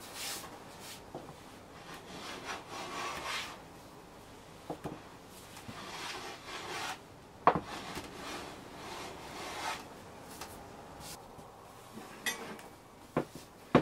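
A hand brushing and rubbing wood shavings across a flat wooden panel in hissy sweeping strokes. A sharp wooden knock about halfway through, and a few lighter knocks near the end, like tools set down on the workbench.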